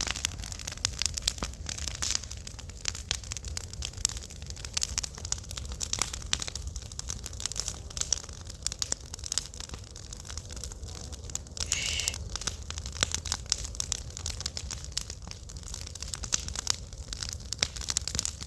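Wood fire crackling: dense, irregular pops and snaps over a steady low rumble of the flames, with a brief high tone about twelve seconds in.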